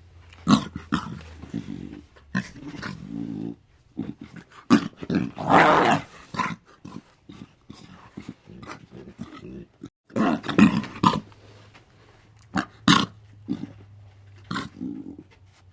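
Lion growling and grunting in a series of short, irregular bursts, with one longer, louder rasping call about six seconds in.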